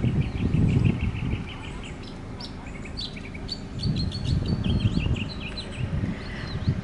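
Small birds chirping outdoors: a fast run of repeated short notes in the first second or so, then scattered higher chirps and calls. Bursts of low rumble on the microphone come and go under the birdsong, strongest at the start and about four seconds in.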